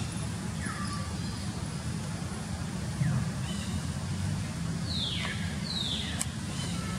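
A baby macaque giving short, sharp squeals that fall steeply in pitch, four times, the last two the loudest, as an adult female handles it on the ground. A steady low rumble like an idling engine runs underneath.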